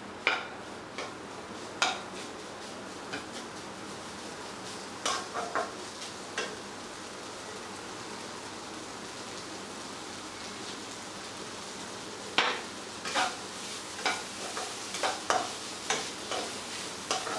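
Chicken keema sizzling steadily in a non-stick pan on high heat as the lemon juice and last moisture cook off. A spatula stirs and scrapes it, clicking against the pan in short spells: near the start, around five to six seconds in, and repeatedly over the last five seconds.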